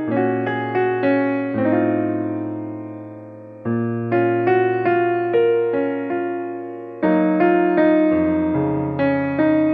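Background piano music: a gentle melody of struck notes over held low chords that change every second or two.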